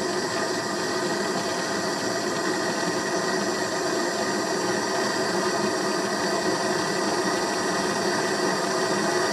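A MAP gas blowtorch burning steadily, its open flame making a constant, even rushing hiss.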